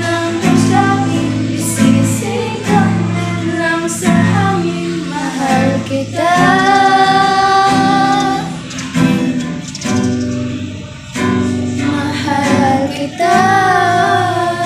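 A woman's voice singing a slow song over instrumental accompaniment, with long held notes about six seconds in and again near the end.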